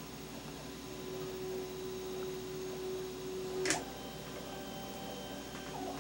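OTIMA SAB11237 PTZ speed dome camera's pan/tilt motor whining steadily as the camera head turns under the dome. The whine cuts off with a sharp click a little past halfway, and a fainter hum follows.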